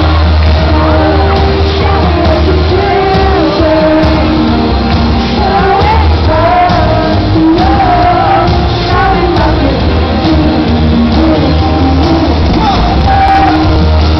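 Pop-rock band playing live through a concert PA: electric guitar, heavy bass and singing, recorded loud from within the audience.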